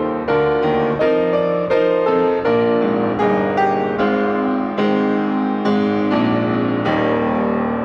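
Piano playing a slow piece in chords, with a new chord struck roughly every three-quarters of a second and left to ring.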